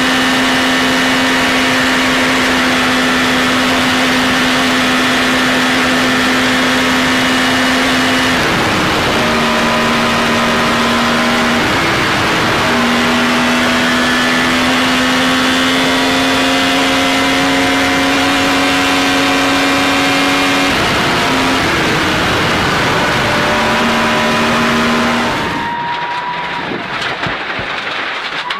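Open-cockpit race car's engine heard from onboard, running hard at high revs with a steady high note that dips and picks up again a few times. Near the end the sound cuts to a quieter car engine inside a closed cabin.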